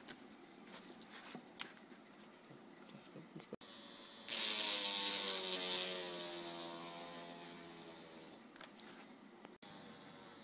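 Homemade rotary cutter, a small 12-volt DC motor with a screw fixed on its shaft, whining at speed as the screw bit grinds into a thin piece of wood. The whine and grinding grow loud about four seconds in and ease off near the end, with the motor's pitch sagging slightly under the load. Faint scratching and clicks come first.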